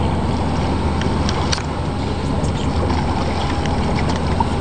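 Boat's outboard engines idling with a steady low hum, and a few light clicks and knocks.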